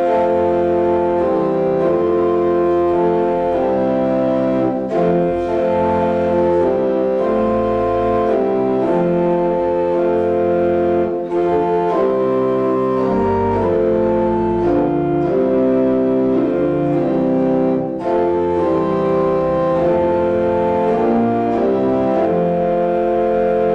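Church organ playing a hymn tune in full chords. Notes are held and change step by step, with brief breaks between phrases about 5, 11 and 18 seconds in.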